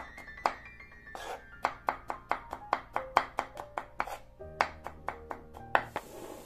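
Chef's knife chopping garlic on a wooden cutting board: quick, regular knocks of the blade on the board, about five a second, with a short pause about a second in. Background music plays under it.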